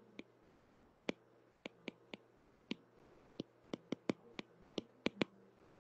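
Stylus tip tapping on a tablet's glass screen while handwriting: about fourteen sharp, irregular clicks, some in quick runs, over a faint steady hum.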